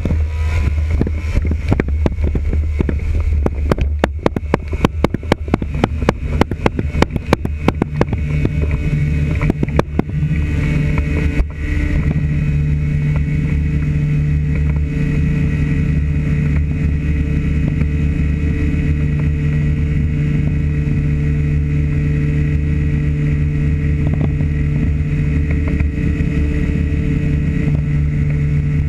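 Small two-stroke engine of a powered hang-gliding harness running at high throttle. For about the first ten seconds its note is broken by rapid sharp pops, then, about twelve seconds in, it settles into a steady, even drone.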